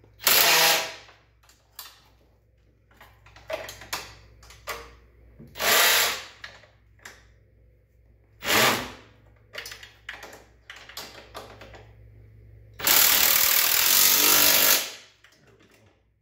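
Cordless power tool driving a lift-kit bolt into the ATV's rear suspension. It runs in three short bursts, then once for about two seconds near the end, with lighter metal clicks and knocks in between.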